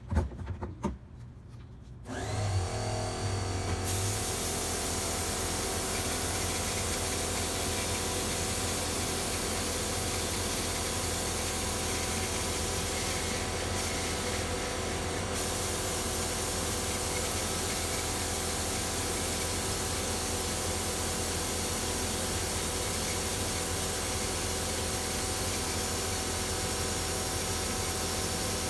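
A motor starts about two seconds in and runs with a steady hum, and about two seconds later the steady hiss of a compressed-air glaze spray gun joins it, spraying glaze onto a pot.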